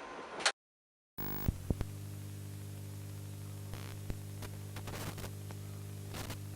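Steady electrical mains hum with a stack of even overtones, picked up in the recording chain, with a few faint clicks just after it starts and a short high beep near the end.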